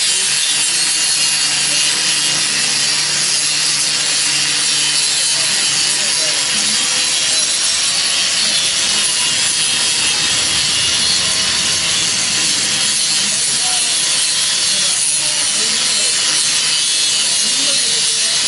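Handheld electric angle grinder running steadily, its disc grinding against a steel workpiece with a continuous, bright grinding noise.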